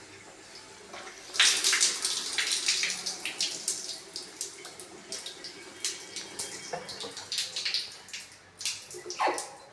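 Water running from a bathroom tap and splashing, starting suddenly about a second in, with irregular splashes throughout.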